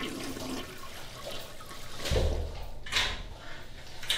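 Toilet flushing in a restroom stall: a steady rush of water, with a deeper surge starting about two seconds in.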